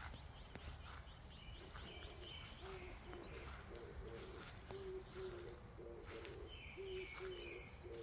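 A dove cooing: a string of short, low, hollow notes in groups of two and three, starting about two seconds in. Small birds chirp higher up, around two seconds and again near the end.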